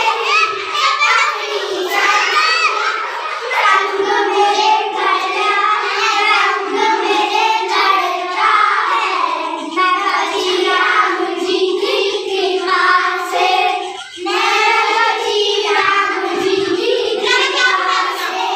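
A group of young girls singing a devotional bhajan together without accompaniment, clapping their hands along with the song.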